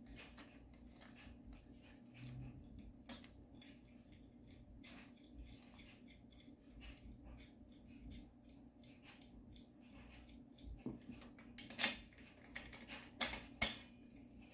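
Light metallic clicks and clinks of metal garment-rack frame and caster-wheel parts being handled while the wheels' screw caps are fitted, with a few sharper clinks near the end.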